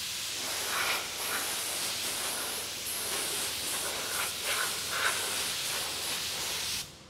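Compressed-air paint spray gun hissing steadily as it sprays paint, then cutting off suddenly near the end as the trigger is released.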